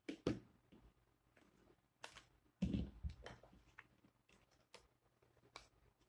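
Origami paper being handled and folded by hand on a desk: paper rustling and creasing among light clicks and knocks of a pen and paper against the board, with the loudest, duller knock about two and a half seconds in.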